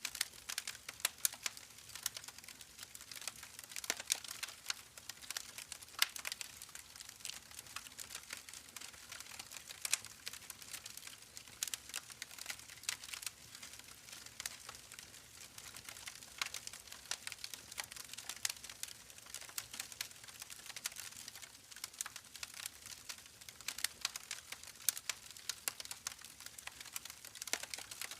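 Campfire crackling: burning wood giving off a steady soft hiss with many small irregular pops and snaps.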